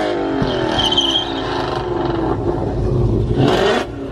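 Car engine and exhaust revving, the engine note falling steadily over the first two seconds as the throttle eases off, then a short louder burst about three and a half seconds in.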